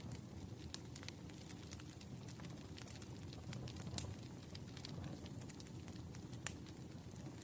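Wood fire crackling: a low steady rumble of flames with scattered sharp pops, two louder ones about four seconds and six and a half seconds in.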